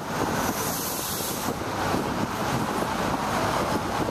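Street traffic noise from passing cars and buses, with wind on the microphone. A stronger hiss comes in during the first second and a half.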